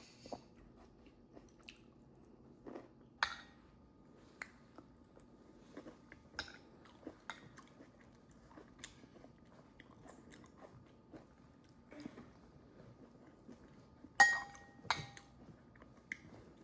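Someone eating: quiet chewing with scattered light clicks of cutlery on a plate, and two sharper ringing clinks near the end.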